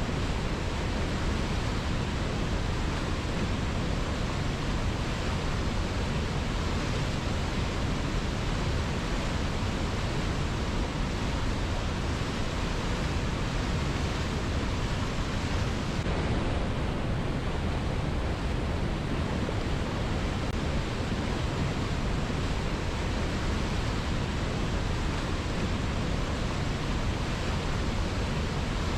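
A river flowing strongly: a steady, unbroken rush of water.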